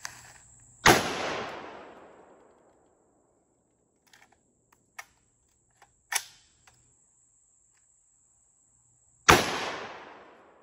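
5.56 AR pistol firing two single shots about eight seconds apart, each with a long echoing tail, with a few light metallic clicks from handling the gun between them. It fires one round at a time instead of running in bump fire, a stoppage the shooter puts down to the magazine.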